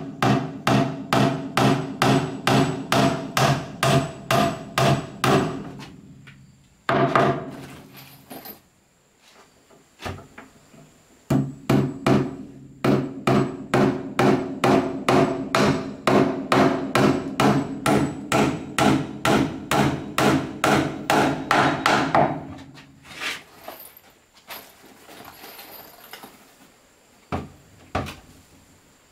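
Hammer blows on wood, about three a second, in two long runs separated by a pause of several seconds, then a few scattered blows near the end. Each blow rings briefly.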